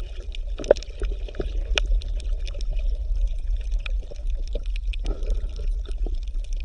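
Water bubbling and gurgling, with many small pops and clicks over a steady deep rumble.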